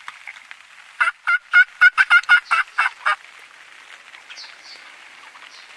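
Wild turkey gobbler (a longbeard tom) gobbling: one rapid rattling gobble of about a dozen notes, starting about a second in and lasting about two seconds.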